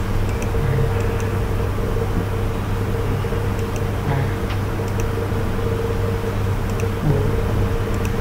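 Steady low electrical hum with a fainter higher tone, and faint computer mouse clicks scattered through it.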